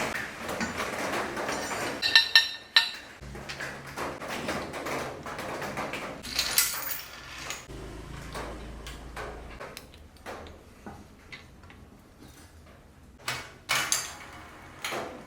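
A rough scraping noise for about the first two seconds, then a scattered series of sharp metallic clinks and knocks, like metal bike parts and tools being handled and set down on a workbench.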